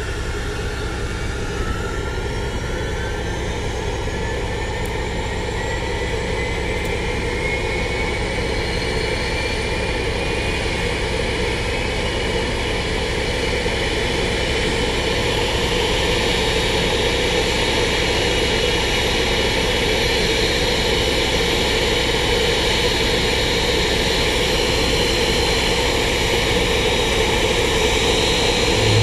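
Boeing 777-200ER's twin GE90 turbofan engines running together on the ground during an engine run-up: a steady roar with whines that rise slowly in pitch as the engines spool up, getting gradually louder.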